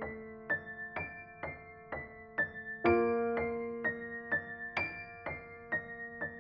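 Background music: soft piano notes struck at about two a second, each dying away, with a fuller chord about three seconds in.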